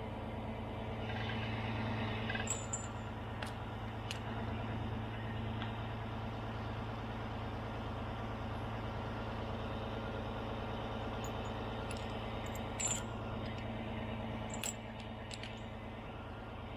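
Large mobile crane's diesel engine running steadily, with a few sharp clinks a few seconds in and again near the end.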